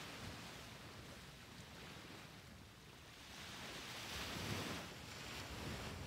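Small waves breaking and washing up a sandy beach: a soft surf hiss that swells to a peak about two-thirds of the way through, then fades.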